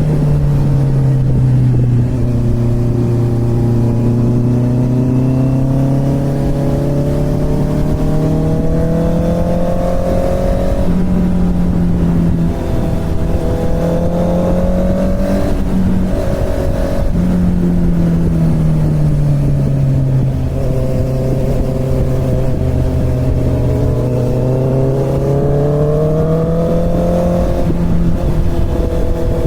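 Inline-four motorcycle engine under way, its pitch climbing slowly as it pulls, then stepping or sliding down with gear changes and easing off. There is a brief break about halfway through, then a long fall and another climb near the end.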